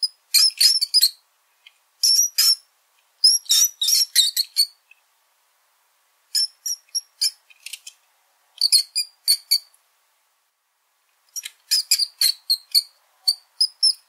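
Small rodent squeaking: rapid, very high-pitched squeaks in bursts of several at a time, with pauses of about a second between bursts.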